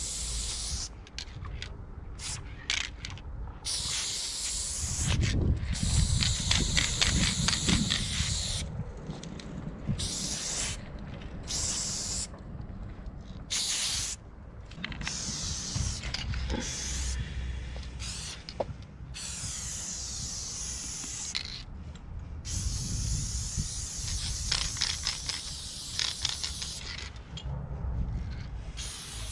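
Aerosol spray paint can hissing in repeated bursts of varying length, some under a second and some several seconds long, stopping and starting abruptly as the paint is laid on, with a low rumble underneath at times.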